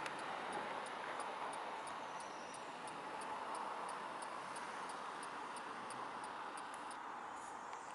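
Faint outdoor street ambience, an even background hush, with a light, regular ticking at a little over two ticks a second.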